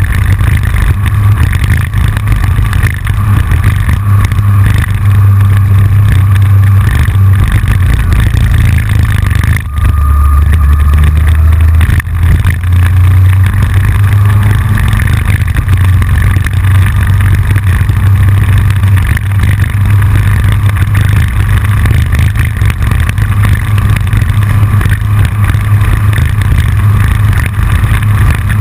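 Yamaha FJR1300 sport-touring motorcycle's inline-four engine running at road speed under heavy wind rush, heard through a camera on the front fairing, with a steady low rumble and a constant clicking and rattling from the loosely mounted camera. About halfway through, the rumble drops lower for a couple of seconds.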